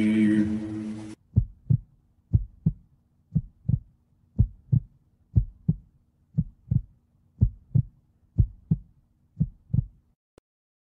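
Chanting music cuts out about a second in, then a heartbeat sound: nine double thumps, lub-dub, about one a second, over a faint steady low drone.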